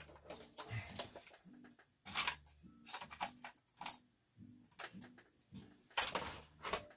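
Small metal sewing-machine presser feet and attachments clinking and rattling against one another as they are sorted through, a string of sharp clicks at irregular intervals.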